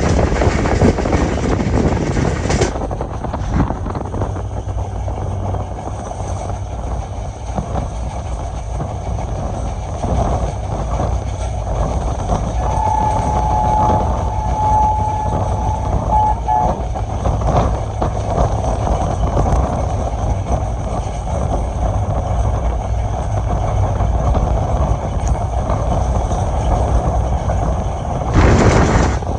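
Passenger train running with a steady low rumble of wheels on track, as its AGE30 diesel-electric locomotive sounds its two-note horn for about four seconds midway. A loud rushing swell near the end.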